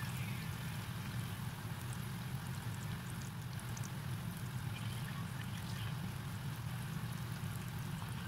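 Cubes of tofu deep-frying in a wok of bubbling oil: a steady sizzle with fine crackles, over a low steady hum.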